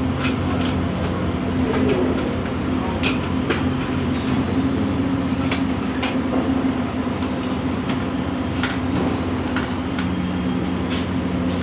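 A steady low drone, like an engine or large machine running, with sharp clicks every second or so.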